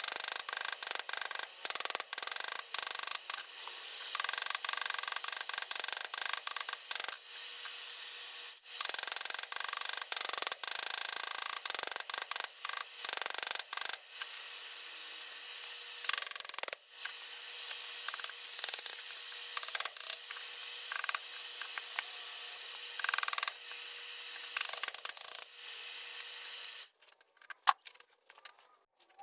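Blacksmithing sounds played back at about eight times speed: hammer work on hot spring steel at the anvil runs together into a dense string of fast, high-pitched clicks over a hissing noise, with a faint steady tone beneath. The sound thins out and drops away near the end.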